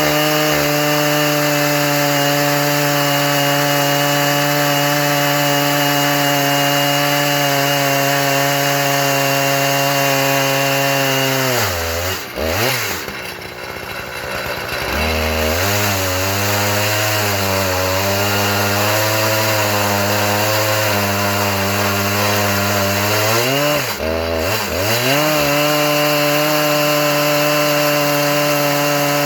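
Husqvarna 3120 two-stroke chainsaw on an Alaskan mill, running at high revs while ripping a log. About twelve seconds in the revs fall away for a few seconds, then come back at a lower, wavering speed. After another dip around twenty-four seconds in, they climb back to the higher speed.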